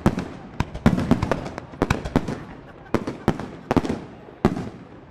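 Professional aerial firework shells bursting in quick, irregular succession: about a dozen sharp bangs, each trailing off in a rolling echo, thinning out near the end.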